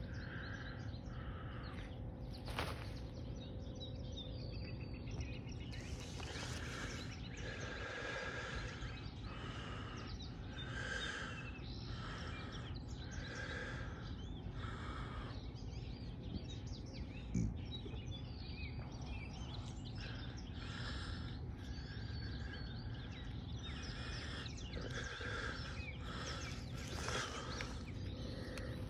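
Outdoor ambience: steady background noise with faint bird chirps, and from about six seconds in a soft sound that repeats roughly every second and a half.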